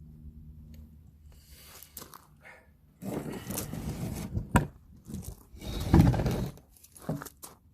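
Hand tools scraping and knocking on the metal parts of an NP271D transfer case during teardown: an irregular run of scrapes and clicks, a sharp knock about four and a half seconds in, and the loudest scrape around six seconds in.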